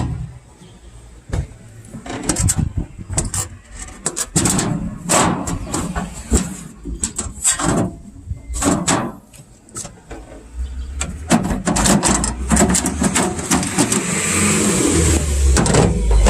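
Irregular knocks, clicks and clatter of a sheet-metal air-conditioner outdoor unit's cover being handled and taken off. About two-thirds of the way in a low rumble and a rushing hiss rise and grow louder toward the end.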